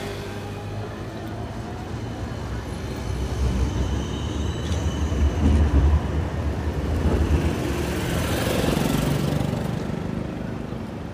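City street noise with a tram passing close by: a low rumble that swells through the middle and then fades as the tram moves on.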